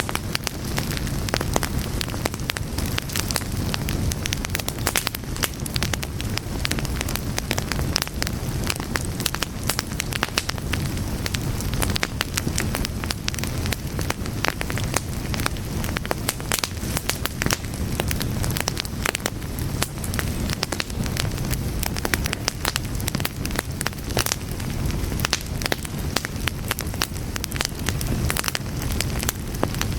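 A fire burning, with a dense, irregular stream of crackles and pops over a steady low rumble of flames.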